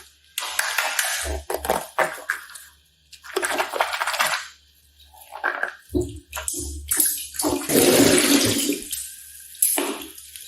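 Slime being handled and worked, making wet, splashy sounds in irregular bursts; the longest and loudest comes about eight seconds in.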